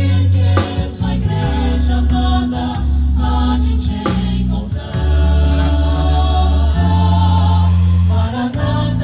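Live gospel worship music from a small ensemble with keyboard and a vocal group, with held bass notes that change every second or two under layered chords.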